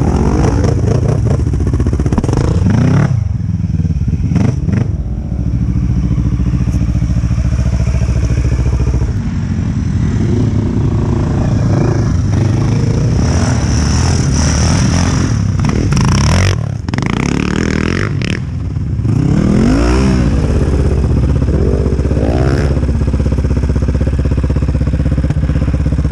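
Quad bike (ATV) engines riding on a sandy track, the engine note rising and falling with the throttle, with several sharp revs a little past the middle.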